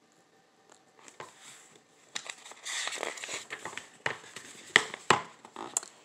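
Pages of a picture book being handled and turned by hand: paper rustling and crinkling with a few sharp taps and clicks, starting about two seconds in.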